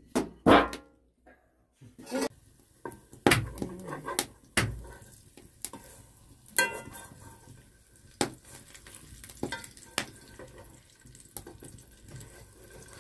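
Cooking utensils and dishes clinking and knocking at irregular intervals, one clink ringing on briefly about six and a half seconds in.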